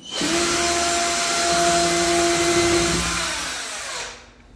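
Cordless drill running steadily with its long bit in the wooden bed frame overhead, then released about three seconds in, its motor winding down with a falling whine and stopping.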